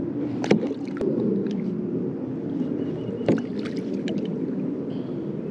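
Water splashing and sloshing against the side of a kayak as a hooked stingray is unhooked at the hull. Two sharp knocks stand out, about half a second in and again after about three seconds.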